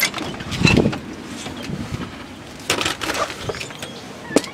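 A series of knocks, scrapes and clicks from movement, with a sharp click near the end.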